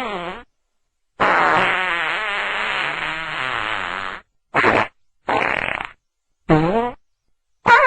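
A string of fart sounds, each cut off into dead silence. First comes one long fart of about three seconds with a wavering pitch, then three short farts in quick succession, and another begins at the very end.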